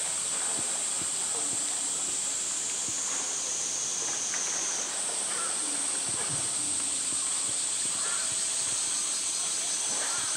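Steady high-pitched drone of a summer cicada chorus, shifting slightly in pitch around the middle. Beneath it are light water splashes from a polar bear swimming and faint murmuring voices.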